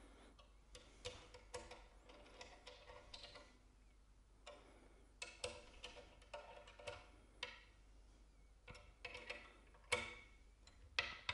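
Faint, irregular metallic clicks and ticks, with brief ringing, of bolts being dropped in and tightened at the mast-to-fuselage joint of a windsurf foil, coming in short runs with pauses between.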